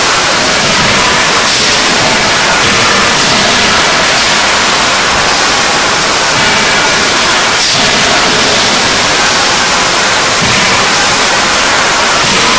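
Loud, steady rushing din of a forging workshop's machinery, with a few faint knocks showing through it.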